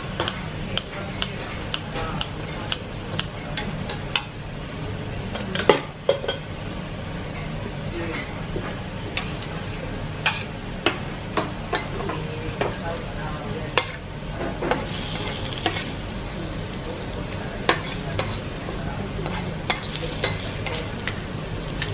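Kopchang (beef small intestine) sizzling and frying on a tabletop grill, a steady crackling hiss broken by frequent sharp clicks.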